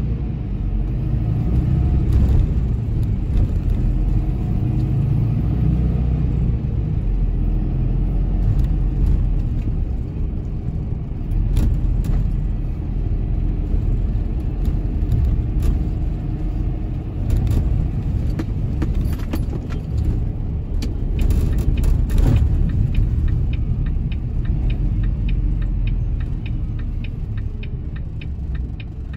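Truck engine and road noise heard inside the cab while driving: a steady low rumble with scattered rattles. It eases off near the end as the truck slows, and a fast, even ticking starts.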